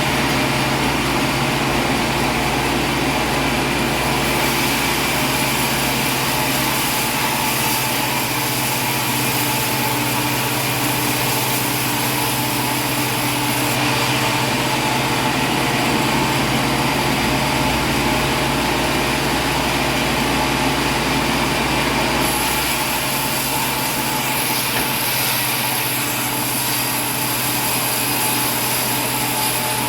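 A machine running steadily with a constant hum.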